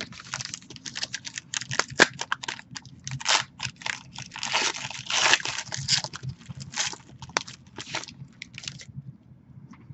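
Paper and plastic trading-card pack wrappers crinkling and tearing as football card packs are opened and handled: a run of irregular crackles and short rasps that stops about nine seconds in.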